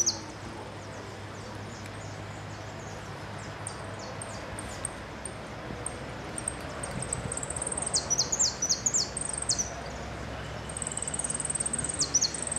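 A caged jilguero singing in bursts: high, rapid twittering trills with quick falling notes. The song starts again about eight seconds in and once more near the end, over a low steady hum.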